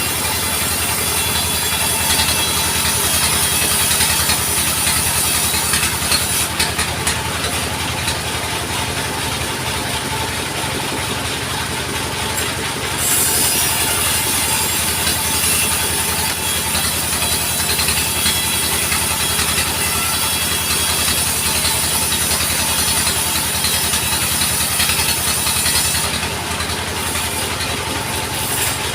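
Engine-driven sawmill band saw running steadily with a low hum, a high hiss on top of it. The hiss drops away for several seconds about six seconds in and again near the end.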